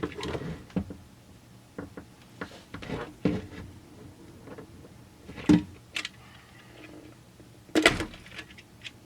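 Handling noise from working a rubber fuel line and chainsaw parts by hand: irregular taps, knocks and rubbing, with two sharper knocks about five and a half and eight seconds in.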